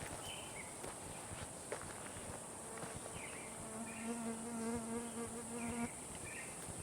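A flying insect, a bee or fly, buzzing close by for about three seconds, starting a little over two seconds in and stopping suddenly near the end.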